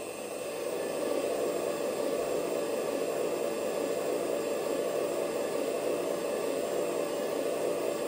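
The sound module of a Kabolite 970 RC excavator plays a simulated diesel engine starting up through the model's speaker. The engine sound swells over about the first second, then runs steadily.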